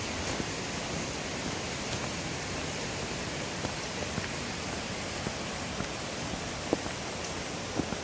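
Steady rushing of a mountain stream, with a few short ticks over it.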